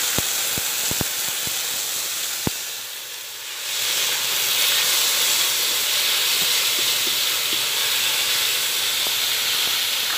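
Soaked dried mushrooms sizzling in hot oil in a wok, a steady hiss of frying and steam. A few light clicks come in the first couple of seconds, and the hiss dips briefly about three seconds in before swelling again.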